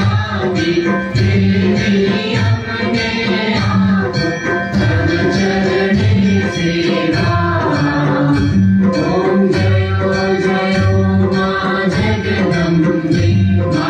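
Devotional aarti song: voices singing together over hand percussion that keeps a steady beat.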